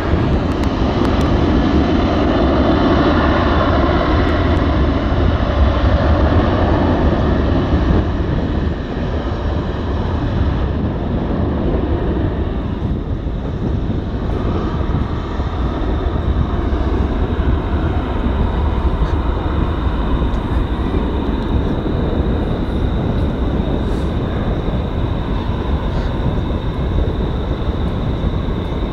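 Boeing 737-800's twin CFM56-7B turbofans at takeoff thrust during the takeoff roll, a loud steady jet roar. It is loudest for about the first eight seconds as the jet passes, then continues more evenly as it moves off down the runway.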